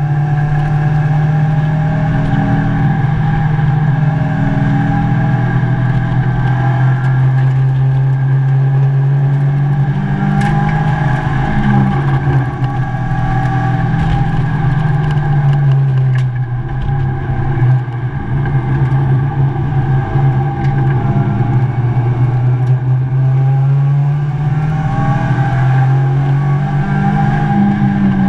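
Mazda MX-5 race car's four-cylinder engine heard from inside the cockpit, running at fairly steady revs with gentle rises and falls in pitch and two brief dips, over road rumble.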